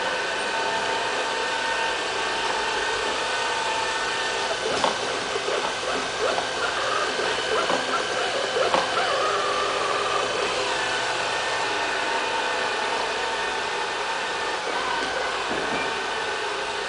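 LL-A320 robot vacuum cleaner running across a tiled floor: a steady motor whine and hiss, with a scatter of light clicks and knocks about five to nine seconds in.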